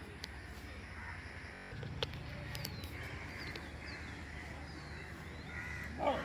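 Outdoor bird sounds: a crow cawing and small birds chirping, with one louder call near the end.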